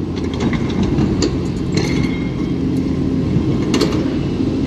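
Fishing reel being wound in, with scattered small clicks and ticks from its mechanism over a steady low hum.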